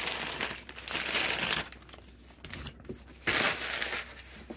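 Cardboard packing sheets being lifted and handled, rustling and scraping in two bursts with a quieter stretch between.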